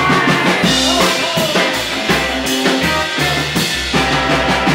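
A live rockabilly band playing: electric guitar, upright bass slapping out the low notes, and a drum kit, with a woman singing over them.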